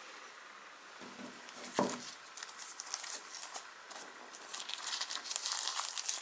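Packaging being handled during a smartphone unboxing: plastic wrap and packing material crinkling in irregular bursts, with a single knock a little under two seconds in.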